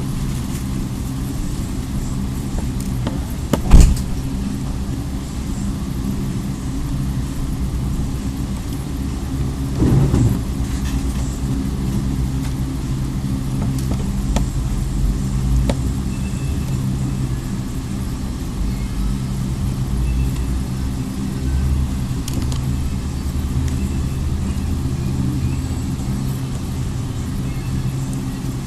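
A steady low mechanical hum, engine-like, with a sharp click about four seconds in.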